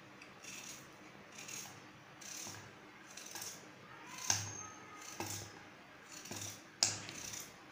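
Knife slicing through a peeled raw potato held in the hand, cutting it into rounds, with slices dropping into a bowl. About one soft crunching cut a second, with a couple of sharper clicks.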